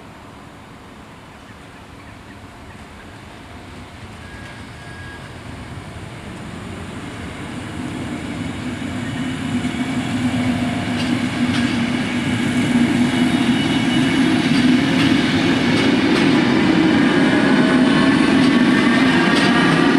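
NMBS MS80 electric multiple unit train approaching, growing steadily louder over about twelve seconds and then running past at full loudness, with wheel-on-rail noise and a whine of several steady tones.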